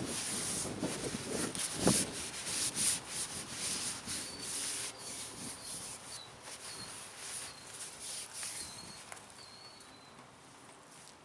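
A rag rubbing oil along a black walnut tool handle: a run of quick wiping strokes that fade out about halfway through.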